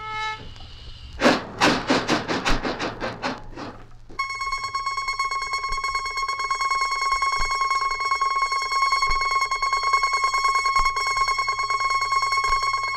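A sound-effect recording of technology played from a flexi disc on a turntable. It starts with a quick run of about seven strokes that fade over two seconds. Then a steady, bright buzzing tone holds for about nine seconds, over a low hum.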